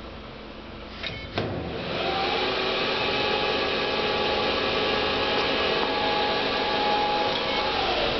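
WM 280 CNC lathe spindle starting after two clicks about a second in, rising briefly in pitch, then running at steady speed with a whine of several tones. Near the end, as the sliding guard is opened, the pitch drops: the spindle is slowing because setup mode limits its speed when the enclosure is opened.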